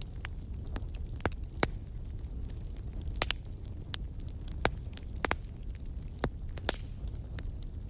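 Wood fire crackling in a fireplace: a steady low rumble of the flames with irregular sharp pops and snaps, about a dozen loud ones.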